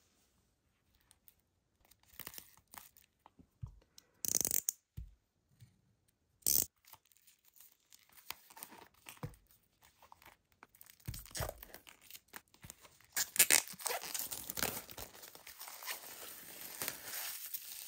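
Plastic shrink wrap being torn and peeled off a boxed album, crackling in scattered bursts from about two seconds in, then crinkling almost continuously through the second half.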